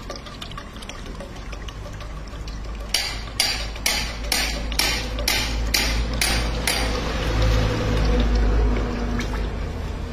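Oil press running with a steady low rumble, and a run of about nine sharp knocks, about two a second, from about three seconds in to about seven. A thin stream of oil runs into a steel pot.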